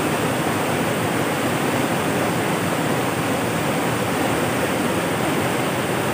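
Waterfall cascade of swollen, muddy floodwater rushing over rock ledges: a loud, steady rush of water. The speaker takes the high, muddy flow for a sign of heavy rain in the forest upstream.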